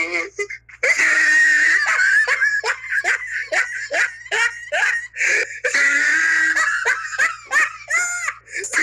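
Laughter sound effect: a person laughing in a long run of short, evenly spaced 'ha' pulses, about three a second.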